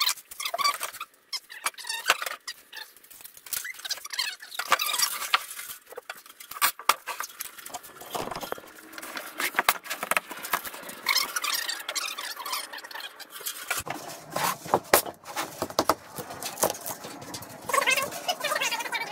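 Handling noise from heavy barn-wood beam blocks being moved about on a table saw top: a run of irregular short knocks and clicks mixed with scraping.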